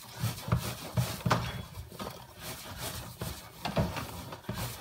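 Hands kneading a bulgur çiğ köfte mixture, pressing and rubbing it against the dimpled bottom of an aluminium pan in irregular strokes.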